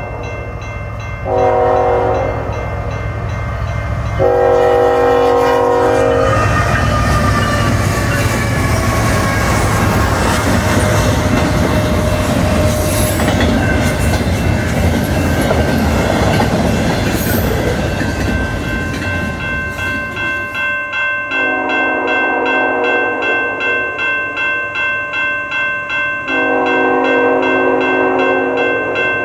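The horn of a new VIA Rail Siemens passenger train sounds in long, long, short, long blasts as the train approaches a level crossing at high speed. The train then rushes past with loud rail and wheel noise, the horn dropping in pitch as it passes. Near the end, a crossing bell rings about twice a second while more horn blasts sound.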